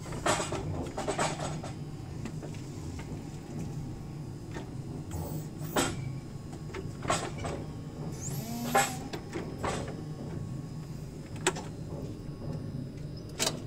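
Forklift running with a steady low hum, with scattered clanks and knocks from the mast and cab and a brief squeak about two-thirds of the way through.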